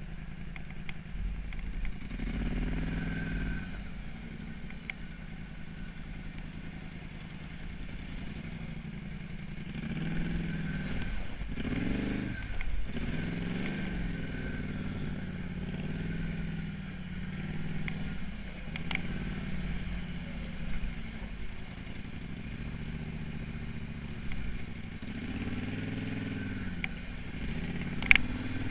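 Polaris Scrambler 850 ATV's parallel-twin engine revving up and falling back again and again as it rides over snow and creek rocks. A sharp knock sounds once near the end.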